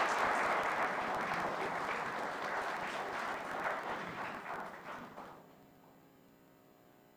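Audience applauding, dying away about five seconds in to quiet room tone.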